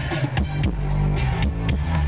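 Music with electric guitar, bass and drum hits on a steady beat.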